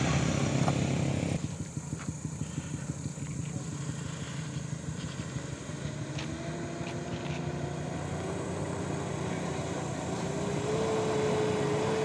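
A pickup's engine passes close by, then the sound drops sharply about a second and a half in. From about six seconds in, a Mitsubishi L300 van's engine is heard climbing the rough grade toward the listener: a whining engine note that rises slowly in pitch and grows louder near the end.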